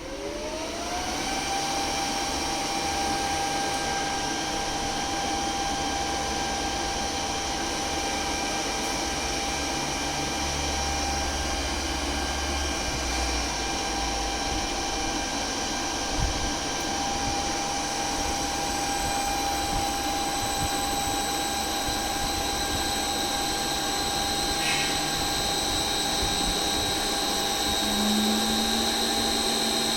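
Electric motor run from an ABB ACH550 inverter, spinning up: its whine rises in pitch over the first second, then holds steady while it keeps running. A single knock comes about halfway through, and a second, lower tone joins near the end.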